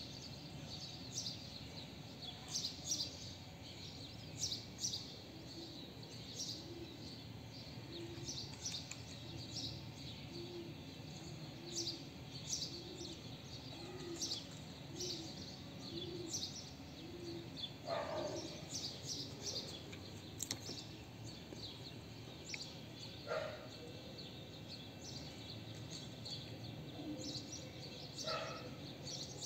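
Small birds chirping outdoors in short, repeated high calls over a steady low background rumble, with a run of low, evenly spaced notes through the middle.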